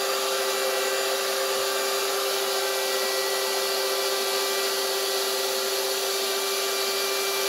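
Rechargeable electric air pump running steadily while it inflates a chamber of an inflatable boat: a constant whine at an unchanging pitch over a rushing hiss of air.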